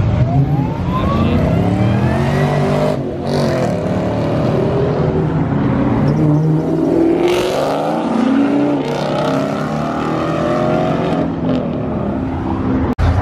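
Muscle cars accelerating hard away from an intersection and passing close by, one after another, their engines revving up in rising sweeps.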